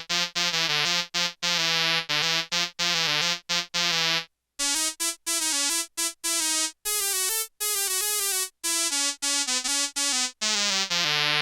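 Vintage Yamaha SY-2 analog synthesizer played as a quick run of short, detached keyboard notes with a bright, buzzy tone, pausing briefly about four seconds in. The instrument is out of tune.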